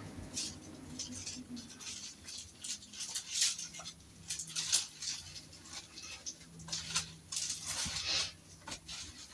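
Irregular scraping and rustling strokes, a scoop working through cat litter.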